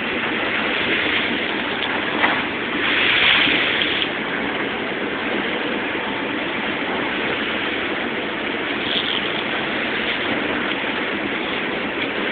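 Steady rushing noise of a boat under way, its engine running under the rush of water, with a brief louder swell about three seconds in.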